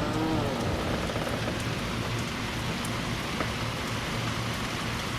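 Heavy rain pouring down steadily, with individual drops pattering through the hiss.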